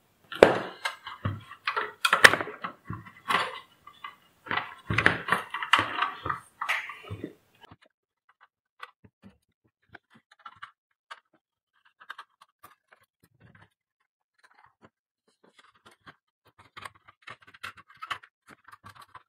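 Clatter and knocks from the satellite receiver's open metal case and tools being handled for the first several seconds. Then faint, scattered clicks as a screwdriver works the screws of the power-supply board.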